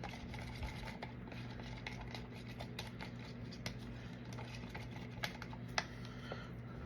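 Stir stick clicking and scraping against a mixing cup as black pigment is stirred into resin: a run of small ticks, with two louder taps about five and six seconds in. A steady low hum runs underneath.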